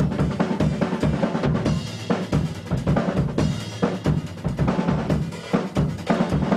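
Acoustic drum kit played fast: a dense run of snare and tom hits over the bass drum, with cymbals ringing out every so often.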